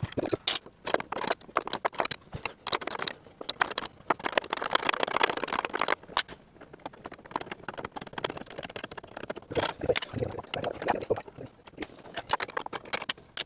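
Wrench clinking and scraping on metal rudder-post hardware as a nut is worked loose: a run of sharp clicks and knocks, with a denser stretch of scraping about four to six seconds in.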